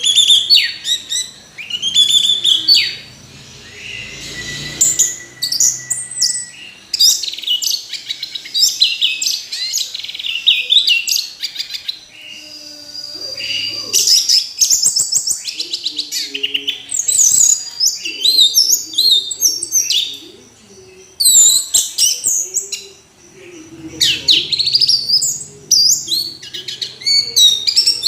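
Orange-headed thrush (anis merah) singing a fast, varied song of high whistled phrases and rapid chirps, in bursts broken by brief pauses.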